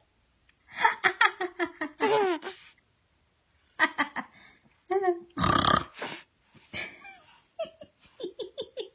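Infant laughing: several runs of quick, high-pitched pulsing chuckles, about five or six a second, with a loud breathy burst about halfway through.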